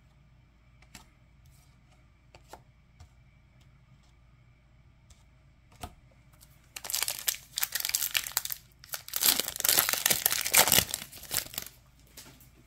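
A football card pack's wrapper being torn open and crinkled, in two loud stretches about seven and nine seconds in. Before that, a few soft clicks of cards being handled.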